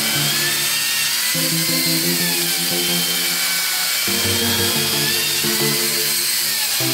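Background music with sustained chords that change every couple of seconds, over a steady hiss.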